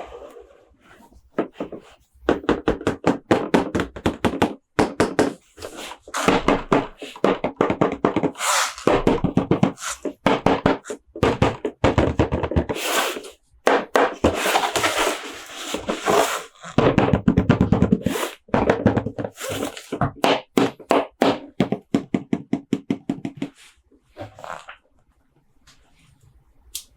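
Plastic toy parts and packaging being handled, giving runs of rapid clicking and rattling in bursts a few seconds long with short pauses between them. It goes quieter near the end.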